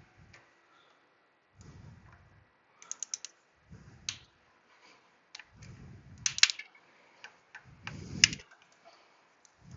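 Irregular sharp metal clicks and clinks from a spring hose clamp being worked off a coolant hose with hose-clamp pliers, with short dull knocks of handling between them.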